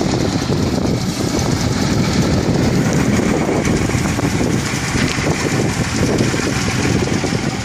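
A 1923 Moon car's engine running steadily at idle, with a dense, rapid, even pulsing.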